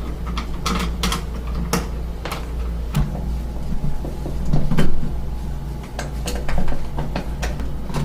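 Surface-mount door lock being handled: irregular metal clicks and knocks, with a louder clunk about four and a half seconds in, over a steady low hum.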